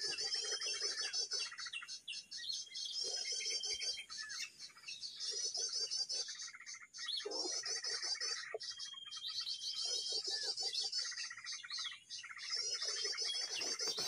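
Bird-call lure recording of many small birds, played from a speaker to draw birds to lime sticks: a dense chorus of high chirps and trills with a short steady whistle that comes back every few seconds.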